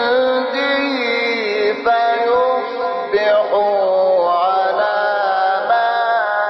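A male Quran reciter's voice holding a long melodic tone in tajwid style, stepping and gliding between sustained notes without pause.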